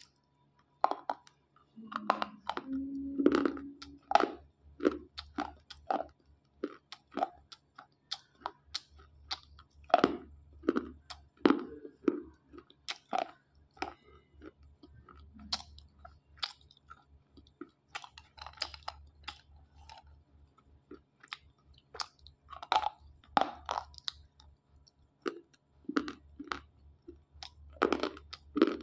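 Dry slate pencils being bitten and chewed: a long run of sharp, crisp crunches, irregular and several a second.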